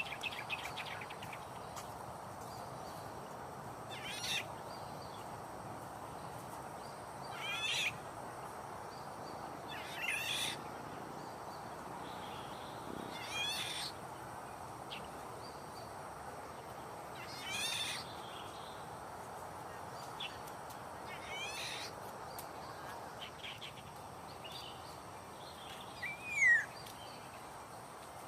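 Birds calling over a steady outdoor hiss: a short, raspy, rattling call about every three to four seconds, and a downward-slurred whistle near the end.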